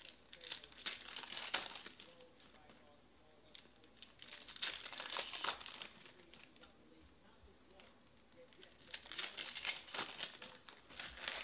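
Foil wrappers of football trading-card packs crinkling and tearing as they are ripped open by hand, in three bursts of crinkling about two seconds each: at the start, in the middle and near the end.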